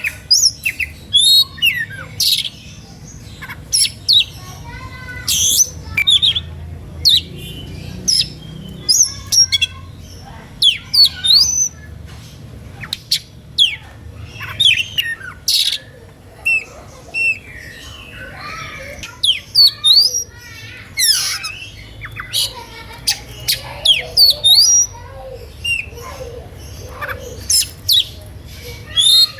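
Oriental magpie-robin (kacer) singing an excited, non-stop song of loud, sharp whistles, fast up-and-down sweeps and harsher squawky notes. It is the agitated full song that draws other magpie-robins into singing back.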